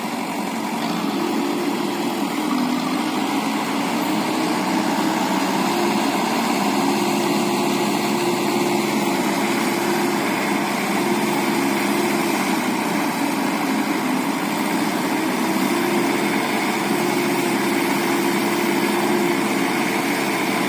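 JCB backhoe loader's diesel engine running steadily at an even pitch while it pulls on a cable to free a crane stuck in the mud.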